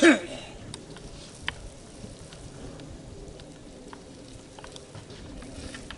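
Paint rollers on extension poles rolling a wet coating onto OSB roof decking, a soft steady crackle with a few faint light clicks.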